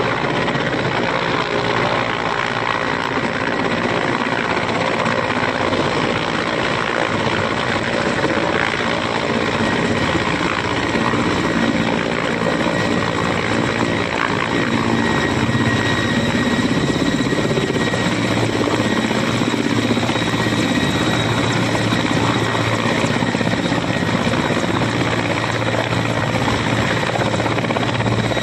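Mil Mi-17 helicopter's rotor and twin turboshaft engines as it approaches and sets down. A dense, steady rotor and turbine noise with a thin high whine, growing a little louder as it comes close.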